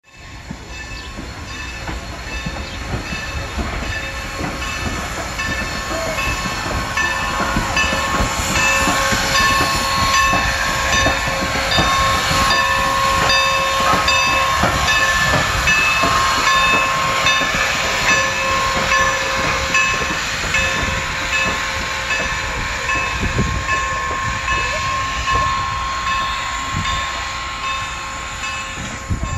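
Norfolk & Western No. 475, a 4-8-0 steam locomotive, passing slowly close by with a steady rumble, clanking running gear and hiss. Its bell rings at an even beat throughout. The sound swells to its loudest about halfway through as the engine comes alongside.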